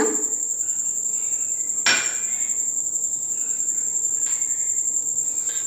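A sharp tap of a metal fork against a ceramic bowl about two seconds in, and a fainter tap a couple of seconds later, over a steady high-pitched whine that never stops.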